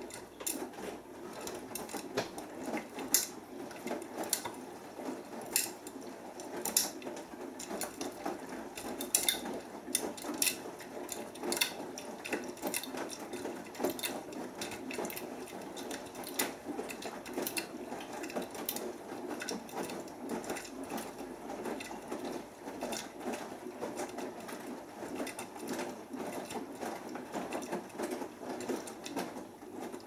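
Beko WMB81445L washing machine's drum tumbling a wet load of clothes during the main wash of a cotton 40°C cycle, a steady churning with frequent light clicks and knocks.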